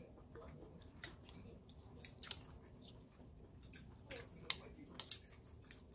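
Person chewing a mouthful of rice noodles, a string of short wet smacks and clicks of the mouth about once or twice a second.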